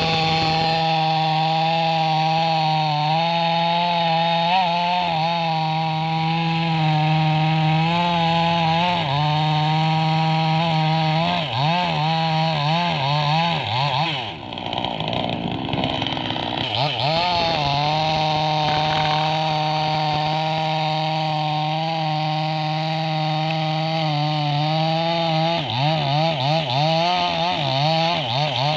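Chainsaw engine running at high revs while cutting wood; its pitch wavers and dips for a few seconds about halfway through and again near the end.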